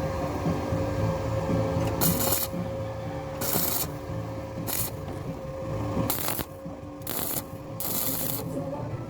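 Abrasive strokes, like sanding, on a truck body panel: about six short rasping strokes roughly a second apart, over a steady hum.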